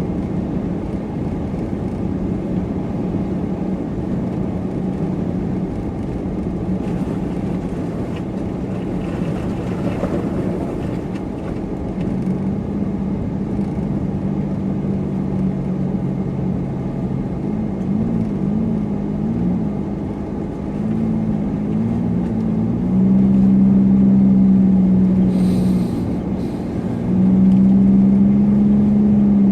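A supercharged car's engine and road rumble while driving. The engine note wavers in pitch from about halfway through, then grows louder for two stretches near the end as the car pulls harder.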